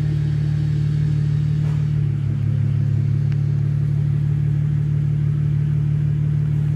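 BMW E92's engine idling steadily, with a slight shift in its low hum about two seconds in.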